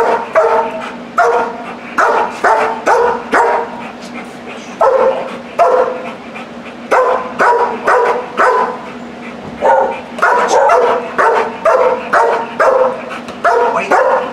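A black German Shepherd barking repeatedly, about two barks a second in runs with short pauses about four and nine seconds in. This is cued alert barking at a person who holds the dog's ball, barking for the ball to be thrown as a reward.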